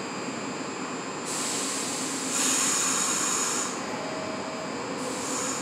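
Subway train standing at the platform, its equipment running with a steady hum and hiss. Sharp bursts of louder air hiss start about a second in and again near the middle, with a shorter one near the end.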